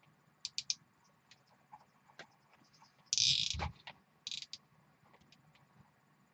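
A plastic zip tie ratcheting as it is pulled tight around an Ethernet cable, a short zip about three seconds in and a shorter one a second later, among light clicks and taps from handling the cables.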